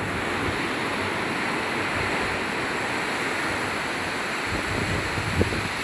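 Steady wash of ocean surf with wind blowing across the microphone.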